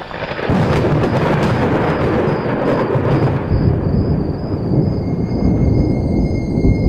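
Thunder during a heavy rainstorm: a loud crackling peal breaks about half a second in and carries on for about three seconds, then settles into a long, deep rumble.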